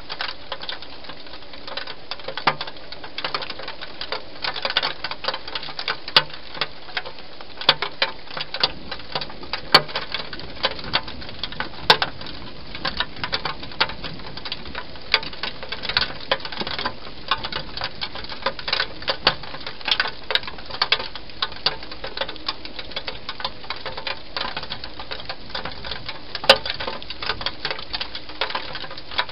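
Wild hedgehog eating, a fast, irregular run of small crunching and smacking clicks as it chews, with a sharper, louder click every few seconds.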